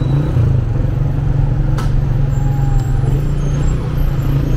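Motorcycle engine running steadily at low speed in slow, dense city traffic, with the noise of the surrounding cars. A single sharp click comes about two seconds in.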